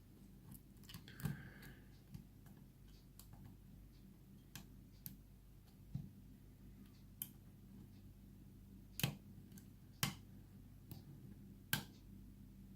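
Faint, irregular small clicks of a short hook pick working the pin stacks of a pin-tumbler lock under light tension, with a few sharper clicks about nine, ten and eleven and a half seconds in, over a low steady hum.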